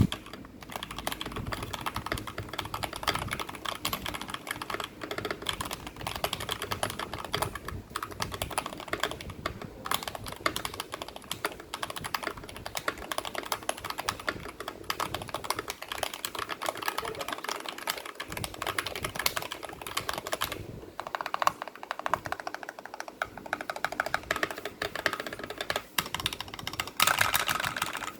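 Typing on a foam-modded Drop CTRL mechanical keyboard with lubed Akko Lavender switches and GMK keycaps: a steady stream of rapid keystrokes, with a faster, louder flurry near the end.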